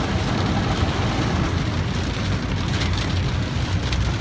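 Rain falling on a car's windows and body, heard from inside the cabin over the steady low rumble of the car on the road.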